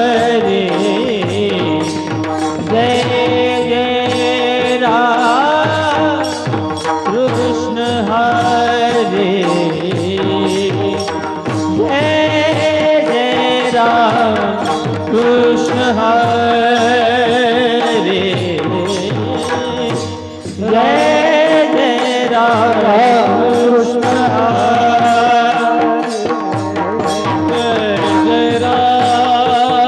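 Devotional bhajan from a Marathi kirtan: a voice singing long, wavering melodic lines over steady hand-drum percussion, with a short drop in the music about two-thirds of the way through.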